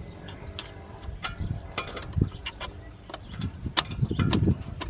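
Scraping old head-gasket material off a Honda Civic engine's mating surface by hand: irregular scratches and clicks of a tool on metal, with a few dull knocks.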